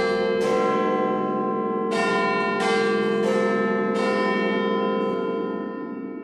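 Church bells ringing, about six strikes at uneven spacing, each bell's tone carrying on under the next. The ringing dies down near the end.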